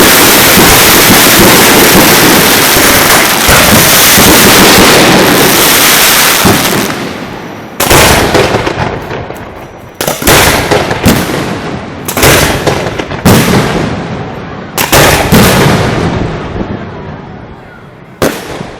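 Ground fireworks: a dense, continuous barrage of firecracker reports for about the first seven seconds that then dies away, followed by about eight separate loud bangs, roughly one a second, each fading off.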